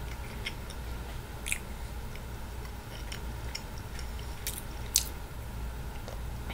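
A person chewing a soft pizza slider with the mouth close to the microphone: wet chewing and scattered lip smacks over a steady low hum. A sharp click about five seconds in is the loudest sound.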